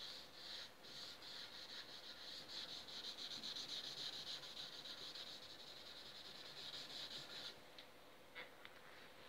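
Faint, fast back-and-forth rubbing as dark stain is wiped by gloved hand into a bare mahogany bass guitar body. The scrubbing stops about seven and a half seconds in, followed by a couple of brief scuffs.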